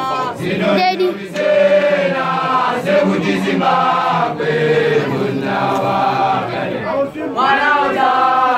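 Young Basotho initiates (makoloane) chanting a lengae, an initiation song, in loud male voices with long held notes and a brief break near the end.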